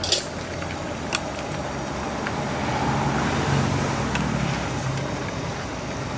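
A metal ladle clinking against a large aluminium cooking pot as a chicken and eggplant curry is stirred, a few sharp clinks. Underneath, a steady traffic-like background rumble that swells a few seconds in and fades again.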